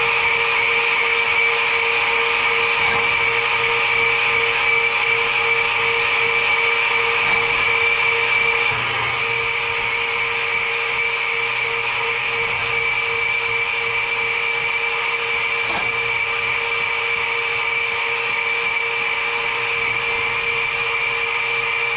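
Electric Eel drum-type drain-cleaning machine running, its motor turning the cable drum as the snake cable feeds into a cast-iron sewer clean-out. It makes a steady mechanical whine that drops slightly in level a little before halfway.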